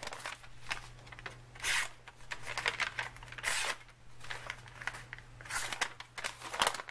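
Close handling noise: three short rustling, scraping swishes spaced about two seconds apart, with small scattered clicks between them.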